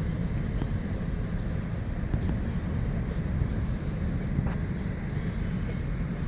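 Low, steady rumble of a short freight train's cars rolling away down the track, with a few faint clicks.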